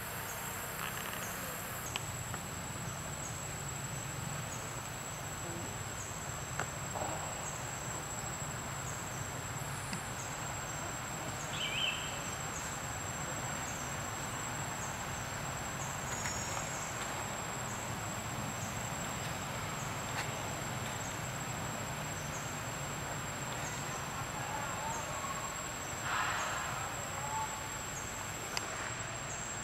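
Forest insects droning steadily: one continuous high-pitched tone with a faint tick every second or so, over an even hiss. A short chirp sounds about twelve seconds in.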